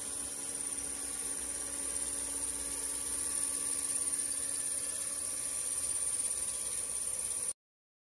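A steady droning hum and buzz with a high whine above it, cutting off abruptly near the end.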